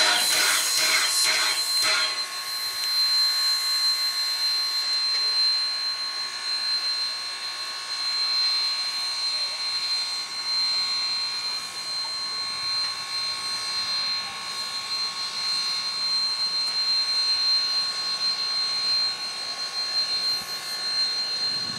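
Everett Railroad #11, a 1920 Mogul (2-6-0) steam locomotive, hissing steam at low speed with a steady high whine over the hiss. Music ends about two seconds in.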